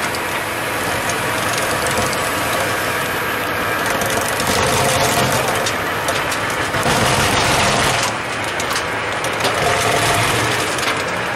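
Valtra S274 tractor engine running under load while its Meri Crusher MJS-241 forestry mulcher rotor shreds brush and stumps, a dense grinding noise full of crackling wood, louder from about four and a half to eight seconds in.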